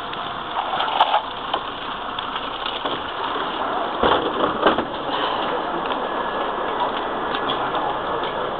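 Mercedes-Benz city bus running with its engine at idle, heard first from beside the open door and then from inside the bus. A few short knocks and rattles sound about a second in and again around four to five seconds in.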